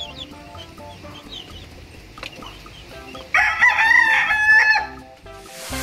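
A rooster crows once, a call about a second and a half long, a little past the middle. Before it, young chicks peep faintly. A short rushing sound comes near the end.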